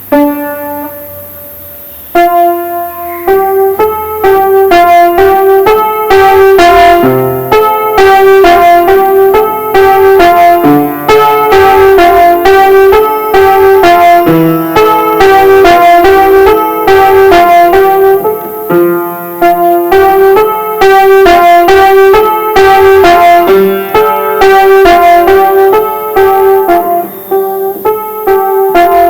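Solo piano playing a slow, repetitive melody over held chords: a few sparse notes, then from about two seconds in a steady flowing pattern of repeated notes.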